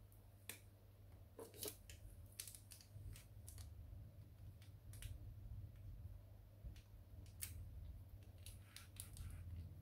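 Faint, irregular clicks and light taps of small plastic and metal parts of a laser printer's fuser unit being handled during disassembly, over a low steady hum.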